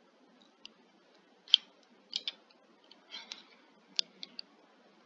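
Sharp clicks of a computer mouse and keyboard, about eight of them at irregular intervals, the loudest about a second and a half in.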